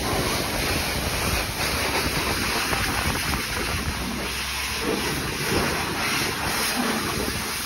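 High-pressure wand at a self-serve car wash spraying water steadily onto a car's body.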